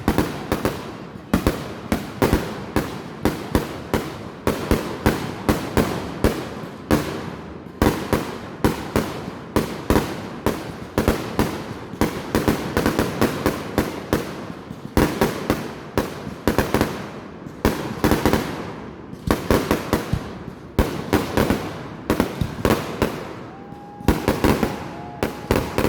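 Fireworks going off in quick succession, several sharp bangs a second with echoing tails, a steady barrage of explosions. A short steady whistle-like tone sounds near the end.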